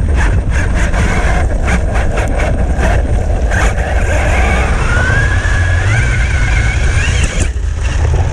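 Brushless-powered Traxxas T-Maxx RC monster truck on a 6S battery driving hard off-road: a heavy low rumble with many knocks and rattles as the truck bounces, and a motor whine that climbs in pitch about five seconds in.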